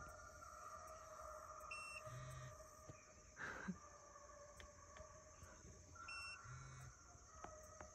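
Near silence, with a faint steady high hum.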